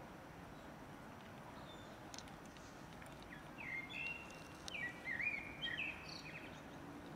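A small bird singing a short run of chirps and warbling notes, starting about three seconds in and lasting about three seconds, over steady background noise.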